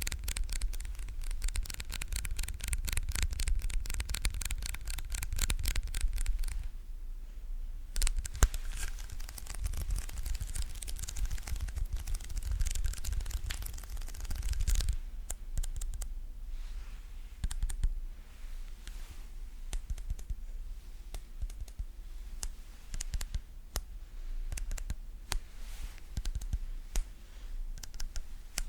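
Sticky ASMR trigger sounds: a tacky surface pulled apart in rapid crackling peels, dense for about six seconds, a short pause, dense again, then slowing to scattered separate clicks in the second half.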